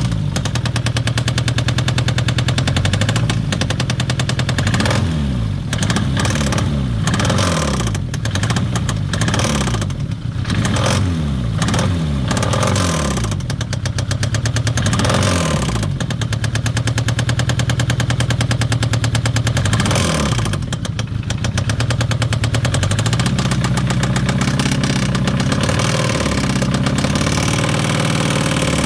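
Citroen ZX 1.9 engine running with a knock, blipped up and down in a string of short revs, then settling to idle and held at raised revs near the end.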